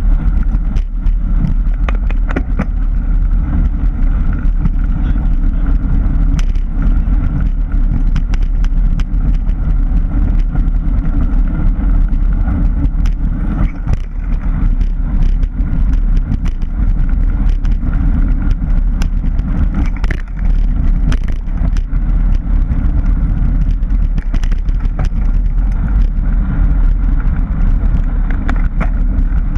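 Mountain bike riding over desert dirt, heard from a camera on the bike: a steady low rumble of wind and tyre noise, with frequent sharp clicks and rattles from the bike and the rough ground.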